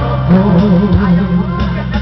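Man singing karaoke into a microphone over a loud backing track, his voice wavering on a long held note.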